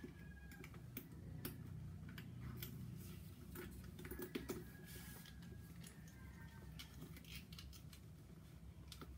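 Handbag and its striped fabric strap being handled and adjusted: faint, scattered small clicks and rustles from the strap hardware and bag, over a low steady hum.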